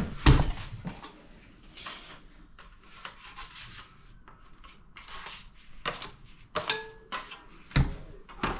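A plastering tool scraping and rubbing on wet gypsum plaster in a series of short, separate strokes, with a sharp knock right at the start.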